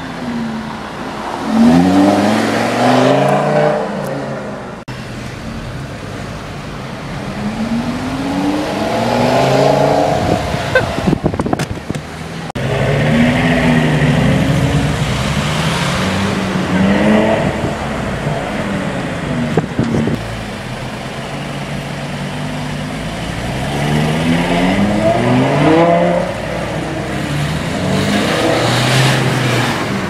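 Lamborghini Gallardo LP570-4 Performante's V10 accelerating hard about five times, its engine note rising in pitch through the gears on each run.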